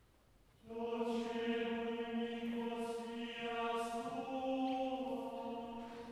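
Male voices singing plainchant in unison, entering about a second in and holding a reciting tone with small pitch steps, then fading near the end, with church reverberation.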